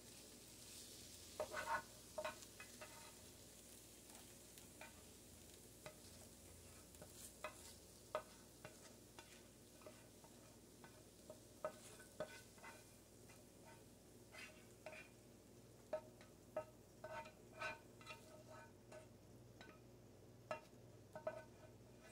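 A cooking utensil scraping and tapping against a frying pan as stir-fried vegetables are pushed out onto a plate: faint, scattered light clicks and scrapes.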